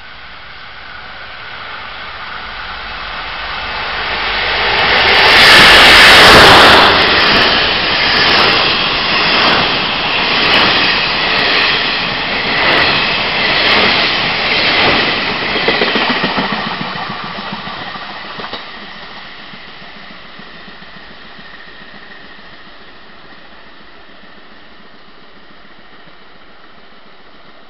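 Diesel-hauled Chu-Kuang express passing through the station without stopping: the locomotive's sound swells to a peak about six seconds in, then the coaches' wheels clatter in a steady beat about once a second. The train fades away after about eighteen seconds.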